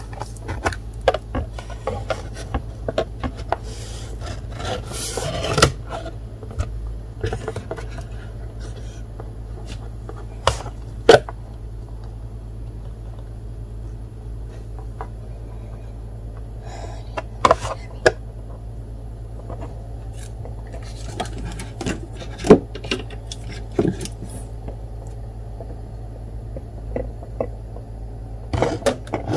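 Handling noise from a box of nail polish bottles in a foam tray: scattered light clicks, knocks and rubbing of bottles and caps, the sharpest about 11 seconds in. A steady low hum runs underneath.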